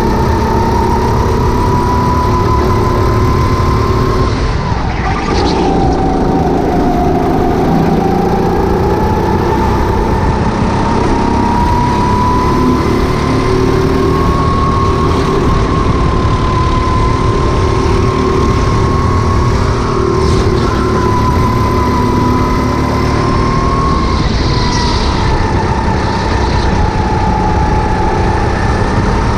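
Rental go-kart engine running hard through a lap, its note dropping about five seconds in as the kart slows for a corner, then climbing back as it accelerates, with another dip near the end. A steady rushing noise runs underneath.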